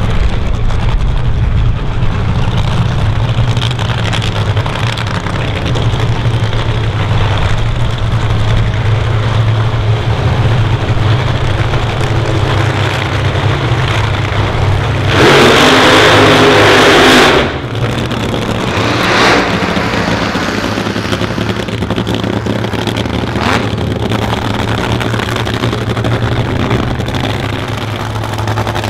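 Nitro drag racing engines of a funny car and an altered running at idle with a steady low drone. About fifteen seconds in, an engine is opened up for a loud burst of about two and a half seconds, then cuts off sharply. Shorter throttle blips follow a couple of seconds later.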